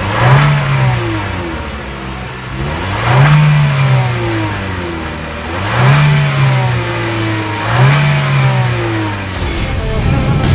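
2014 Chevrolet Sonic LTZ's 1.4-litre turbocharged four-cylinder engine revved four times, each rev rising in pitch and falling back to idle, heard through the exhaust.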